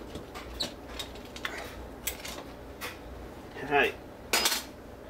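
Screwdriver and screws clicking and scraping against the plastic wall plate of an old thermostat as it is unscrewed and taken off the wall. A short squeak comes just before four seconds in, and two louder scrapes follow soon after.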